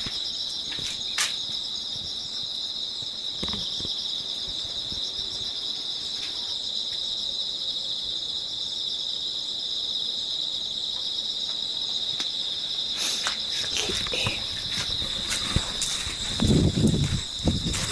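Insects chirring in a steady, high, finely pulsing drone, with scattered light clicks. Near the end come a few louder low knocks and scrapes.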